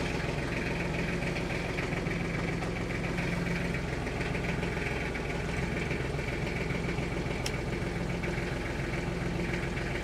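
Kubota tractor's diesel engine idling steadily, heard from inside the cab, warming up just after a cold start that it made easily thanks to being plugged in.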